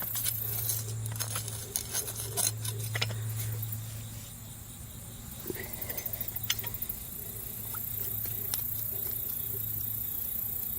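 A shovel digging into soil and wood chips: scattered scrapes and crunches, with a quicker run of small knocks about six seconds in.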